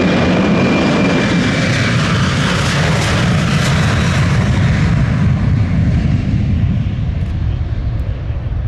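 Boeing P-8A Poseidon's two CFM56 turbofans at takeoff thrust: a loud, steady jet roar as the aircraft accelerates down the runway past and away. A thin high fan whine fades out about two seconds in, and the roar grows duller toward the end as the aircraft rotates to lift off.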